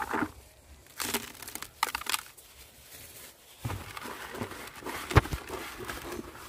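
Uncooked rice grains pattering into a plastic basin in a few short pours. Then a hand stirs and crushes the rice together with crumbled mustard cake against the basin's bottom, a gritty rustling scrape with one sharp knock about five seconds in.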